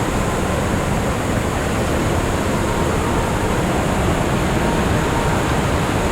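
Waterfall roaring: a loud, steady rush of falling water with no let-up.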